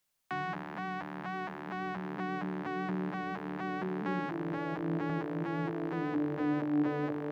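Electronic intro music: a repeating synth note about twice a second over sustained low chords, starting just after the beginning.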